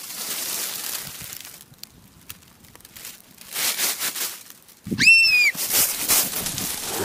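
Dry leaves and grass rustling and crunching, then about five seconds in a short, shrill cry that rises in pitch and dips slightly at the end, the loudest sound here. Footsteps follow, running through dry leaves and dirt.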